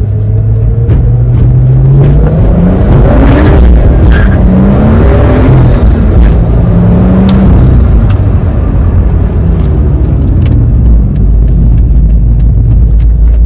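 BMW N55 turbocharged inline-six in an E46, heard from inside the cabin while the car accelerates. The engine note climbs in pitch several times in quick succession, dropping between climbs, then settles to a steady cruise after about eight seconds.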